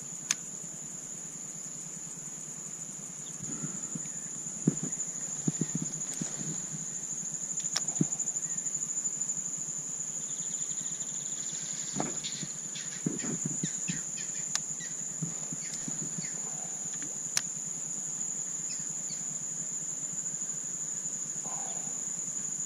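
Insects trilling steadily at a high pitch, with scattered clicks and low knocks from the kayak, paddle and fishing gear being handled.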